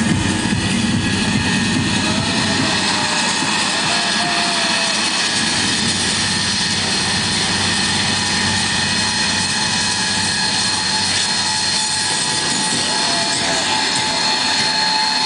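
Electronic dance music played loud over a club sound system, heard as a steady wash of noise with held high synth tones; the bass drops away about two seconds in.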